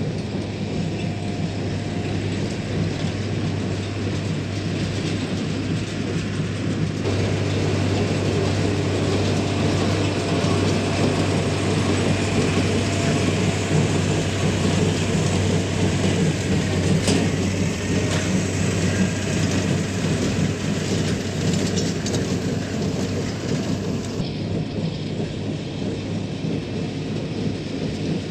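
Tractor running steadily while pulling a small square baler, its engine humming under the baler's mechanical rattling; the sound gets louder about seven seconds in and drops back near the end.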